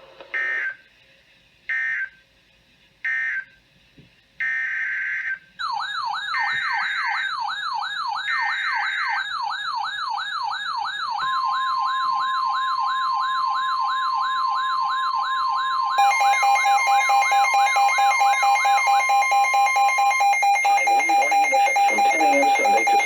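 Emergency Alert System tones on NOAA Weather Radio. First come short bursts of screeching data-header tone. Then a fast up-and-down warbling siren-like sweep starts, with more data bursts over it and a steady single weather-radio alert tone joining partway through. About two-thirds in, a fast-pulsing two-tone alarm takes over and stops near the end.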